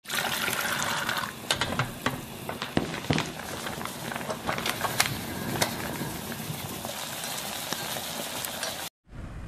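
Steady crackling, sizzling noise full of scattered sharp clicks, louder for the first second or so, cutting off suddenly near the end.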